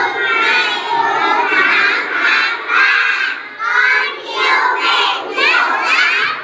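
A class of young children shouting together in chorus, their voices rising and falling in drawn-out syllables.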